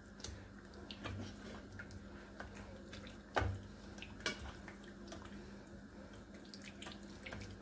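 Hands squelching and rubbing a wet spice marinade over a raw whole chicken: faint, wet handling sounds with scattered soft slaps, the loudest about three and a half seconds in.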